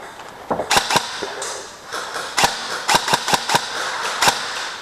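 Airsoft guns firing single shots: about eight sharp cracks at uneven intervals, some in quick succession.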